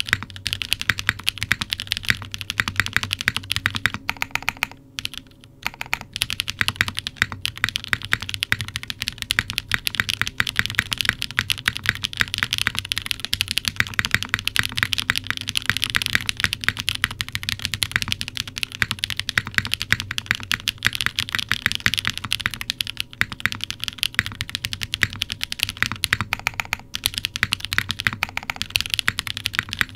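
Steady fast typing on a WK Lilac CW60 custom mechanical keyboard with lubed L&F Techno Violet switches, a half-polycarbonate plate, no foam, and GMK keycaps: a dense run of key clacks with a short pause about five seconds in.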